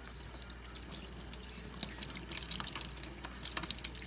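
Kitchen sink tap running, with scattered sharp splashes and drips.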